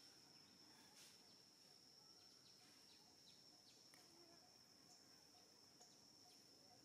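Near silence: faint outdoor ambience with a thin, steady high-pitched whine and a few soft clicks.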